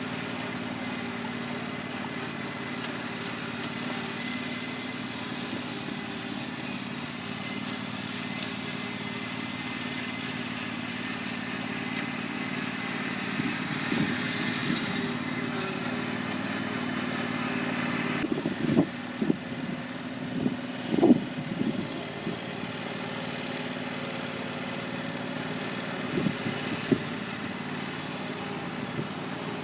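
Lawn mower running steadily, with a cluster of sharp knocks about two-thirds of the way through and a couple more near the end.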